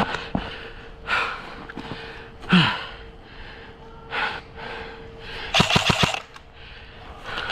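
A player moving during an airsoft game: breathing and gear or clothing rustling, with a quick string of about five sharp clacks roughly six seconds in.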